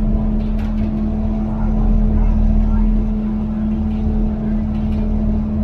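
Pikes Peak cog railway train running steadily, its diesel engine and drive giving a steady drone with one strong, even hum and a few faint clicks.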